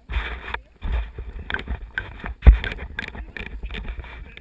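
Wind buffeting an action camera's microphone, a low rumble with hiss, along with scattered clicks and one sharp thump about two and a half seconds in.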